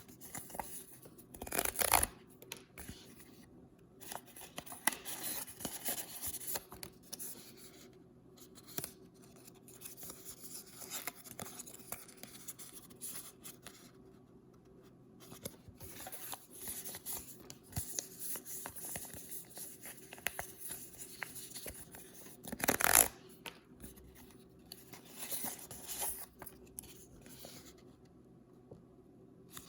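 Hands unwrapping paper blind bags and toy packaging: paper crinkling, cutting and tearing in irregular spurts, with louder bursts about two seconds in and again near twenty-three seconds.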